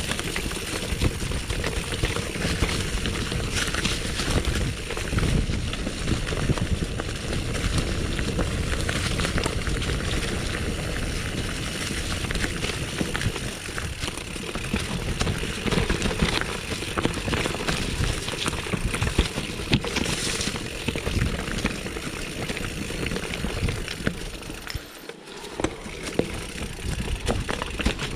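Mountain bike descending rocky singletrack: a constant rumble of knobby tyres over stones and roots, with the frame, chain and suspension clattering at each rock hit. The noise eases briefly about 25 seconds in.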